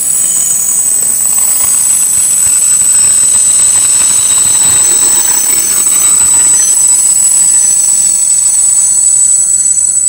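Container flat wagons of a freight train rolling past at close range, their wheels giving off a steady high-pitched squeal of several tones over the rumble of the running gear.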